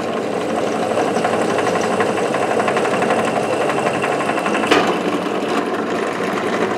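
A drill press running, its oiled twist bit cutting a hole into a steel pipe: a steady mechanical whir and grind, with one short sharp click about two-thirds of the way through.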